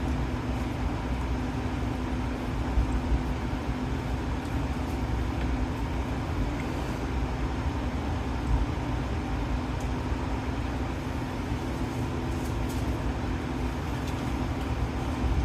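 Metal lathe running steadily, its 1-horsepower 110-volt motor giving a steady hum and low rumble, with a couple of faint ticks.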